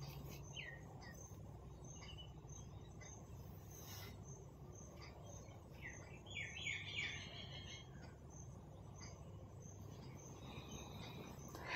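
Faint bird chirps in short runs, about half a second in and again around six to seven seconds in, over a low steady hum, with a brief noise near the end.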